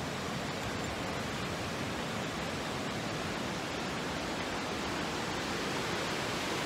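A river rushing steadily, an even wash of flowing water.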